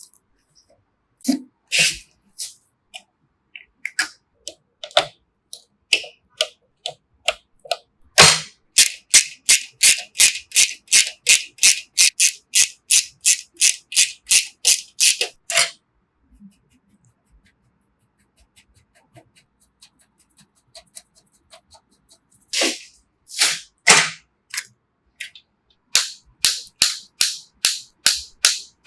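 Hard plastic-and-metal clicks and snaps of PC parts being handled and fitted together. After a few scattered clicks, an even run of about three sharp clicks a second lasts some seven seconds. It stops, and after a quieter stretch irregular clicks return near the end.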